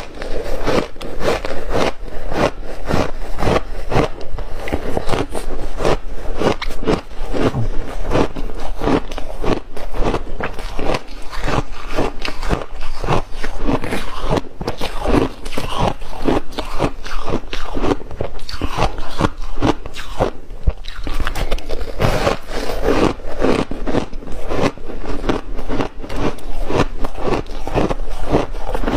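A person biting and chewing ice close to the microphone: a steady run of sharp crunches, several a second, without a pause.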